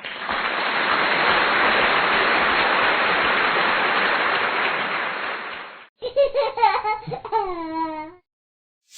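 A steady hiss of noise for about six seconds, fading out, followed by a young child giggling for about two seconds.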